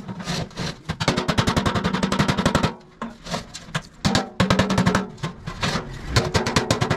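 Rapid hammer strikes on a galvanized sheet-steel water tank, worked along the seam at the rim of its lid, many strikes a second. The hollow tank body rings under the blows, and there are a couple of brief pauses.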